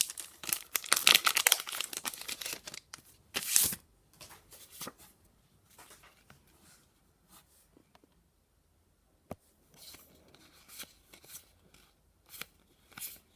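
A trading-card booster pack's wrapper being torn open in a few quick rips, followed by lighter crinkling of the wrapper and soft taps as the cards are handled.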